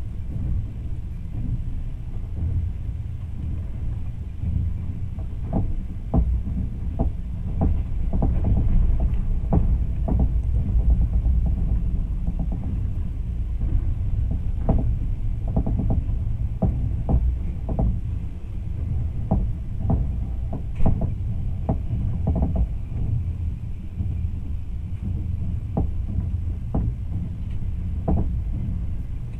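Electric train running, heard from inside a carriage: a steady low rumble with frequent, irregular knocks and clacks of the wheels on the track, and one sharper clack about two-thirds of the way through.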